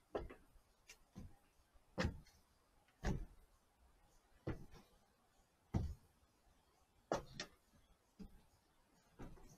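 Footsteps thudding on aluminium bleacher planks, roughly one step a second, each with a short ring after it.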